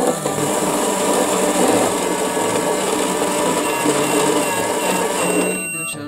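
Toy microwave running, a loud steady motor whir that cuts off shortly before the end as its timer reaches zero.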